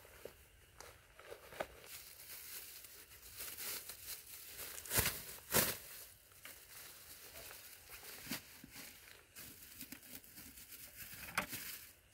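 Clear plastic bag crinkling and rustling as it is opened and pulled over the rim of a plastic bucket, with two sharper, louder crackles close together about five seconds in.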